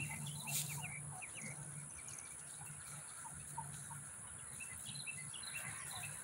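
Faint outdoor ambience of small birds chirping in short, scattered calls, over a low steady hum that fades out about four seconds in.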